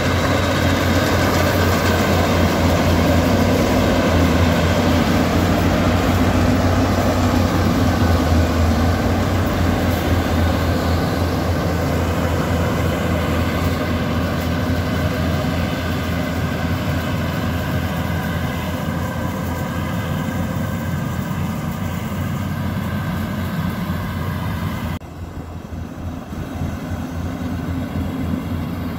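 Yanmar YH850 rice combine harvester's diesel engine and threshing machinery running steadily under load while cutting paddy. The sound drops abruptly to a lower level about 25 seconds in and carries on steadily.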